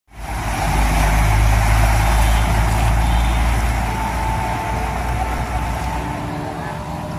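A motor vehicle engine running with a steady low rumble over a constant rushing noise from the flooded street; the rumble eases about five seconds in.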